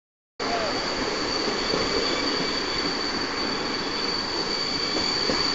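Passenger train wheels rolling on the track, heard from an open carriage window, with a steady high-pitched wheel squeal held over the rolling noise. The sound cuts in suddenly about half a second in.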